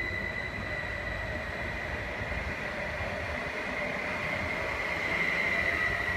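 Stadler FLIRT 3 electric multiple unit passing close at speed: steady rolling rumble of wheels on rail, with a steady high whine that grows a little louder near the end.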